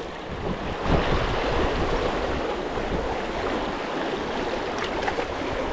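Fast, shallow river water rushing steadily over stones, with some wind on the microphone.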